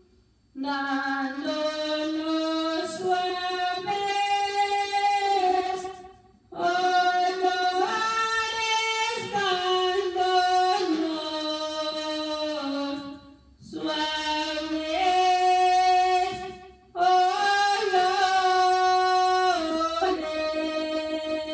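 A woman singing a Spanish Christmas praise song (alabanza) unaccompanied, in four long phrases with held notes and short breath pauses between them.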